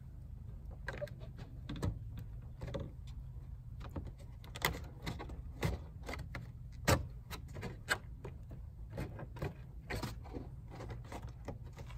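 A slip-on splash guard being pressed and slid onto the lip of a car's front wheel arch: irregular clicks, taps and short scrapes as the flap is worked into place, the loudest about seven seconds in, over a steady low hum.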